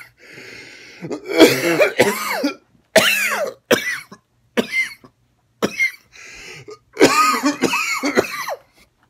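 A man coughing and clearing his throat in a run of loud, rasping, partly voiced hacks, about eight in all, the loudest about a second and a half in. The cause is blackberry seeds from a smoothie caught in his throat.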